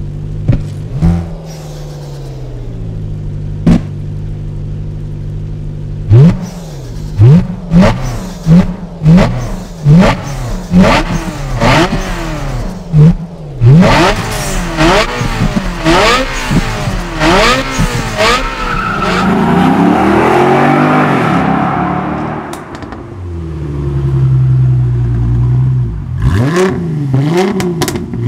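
A car engine idles, then is revved hard in a rapid series of throttle blips, each a quick rise and fall in pitch, about one a second. A rougher, noisier stretch follows, then it settles back to idle before a few more revs near the end.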